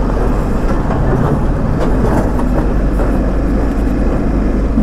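BMW G 310 RR single-cylinder motorcycle riding over a rough, broken road, its engine running steadily under a constant clatter of jolts and rattles.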